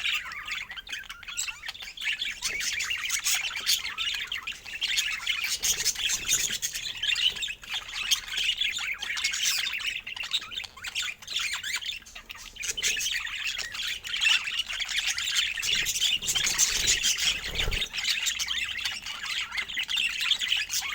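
Budgerigars chattering: a steady, busy stream of high chirps, warbles and squawks.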